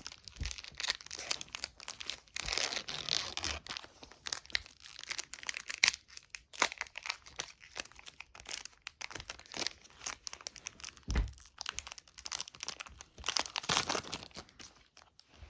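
Foil Pokémon booster pack wrapper being torn open and crinkled by hand: a long run of irregular crackling and tearing.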